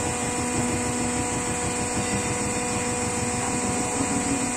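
Vertical broaching machine's drive running steadily as the ram travels upward, a steady hum whose lower note rises a little near the end.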